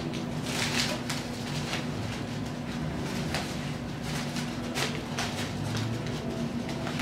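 Brown paper bag stuffed with hay crinkling and rustling in the hands as its gathered top is tied shut with rope, in a few irregular soft rustles over a steady low hum.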